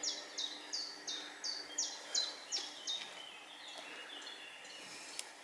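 A small songbird singing a high note that slurs downward, repeated about three times a second, dropping lower and fading after about three seconds. A single click near the end.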